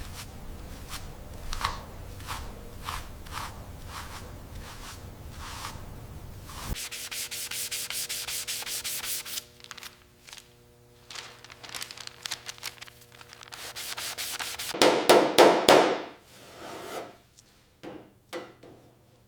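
Hand rubbing strokes on a part being restored, repeated over a low rumble that cuts off abruptly about seven seconds in. The strokes then come fast for a few seconds, followed by a louder rasping burst near the end and a few scattered clicks.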